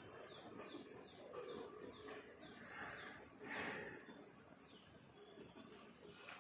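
A bird calling: a quick run of about seven short notes, each sliding downward, then one more such note a couple of seconds later. Around the middle comes a brief, louder burst of noise.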